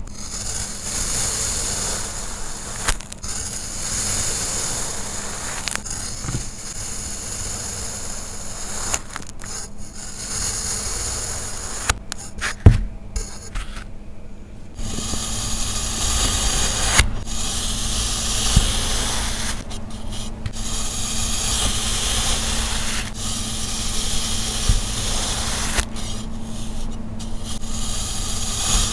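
Kinetic sand being sliced with a flat blade, the cut slabs falling and crumbling, making a continuous scraping, crumbling noise. A sharp knock comes about halfway through.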